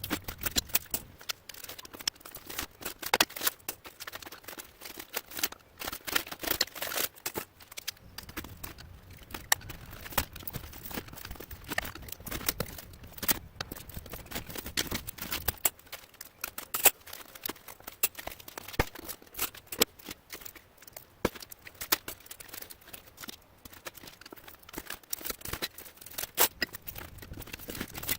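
Copper windings being pried and pulled out of an electric motor with hand tools: a dense, irregular run of sharp metallic clicks, scrapes and tearing sounds that keeps going without a break.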